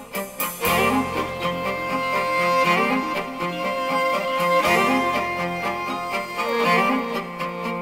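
Instrumental background music led by bowed strings, with a low bass line that comes in about a second in.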